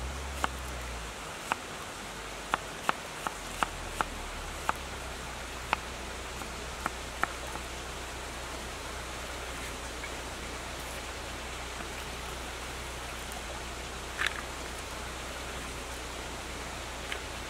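Knife chopping onion on a wooden cutting board: about a dozen sharp, irregular chops in the first seven seconds, then one knock about fourteen seconds in. A river rushes steadily behind it.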